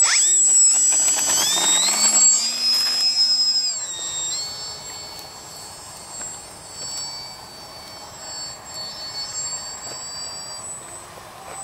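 Yak-55M RC model plane's motor and propeller throttling up hard for takeoff, a loud high whine that rises and shifts in pitch. After about four seconds it drops to a quieter, steady whine as the plane flies off.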